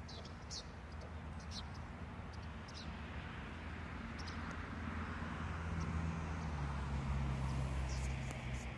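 Open-air ambience: a steady low rumble and hiss that grows louder later on, with short high bird chirps scattered through it.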